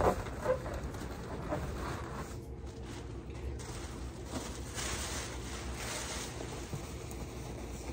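Latex balloons rubbing and squeaking against each other as a balloon cluster is twisted and locked into place on the column, with a few louder rubs in the first half second, then quieter rustling.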